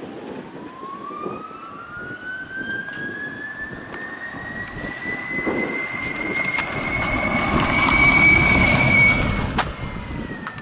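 Electric drive of a Pickman electric mini-truck fitted with a Duyunov DA-90S induction motor, whining as the truck accelerates. The whine rises steadily in pitch with speed and levels off about eight seconds in, when it is loudest along with tyre noise as the truck passes close, then drops slightly near the end.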